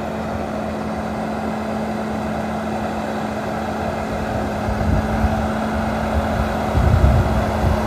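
BMW 535xi wagon rolling forward slowly under its own power: a steady engine hum, with low wind gusts buffeting the microphone in the second half.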